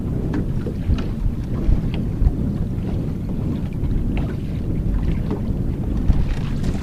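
Wind buffeting the microphone in a steady low rumble, with small waves splashing against the boat's hull now and then.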